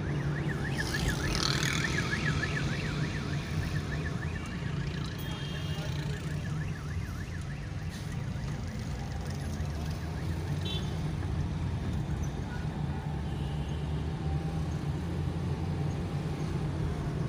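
Steady engine and road rumble heard from inside a moving car's cabin. For the first several seconds a fast-warbling electronic siren sounds in the traffic, then fades away.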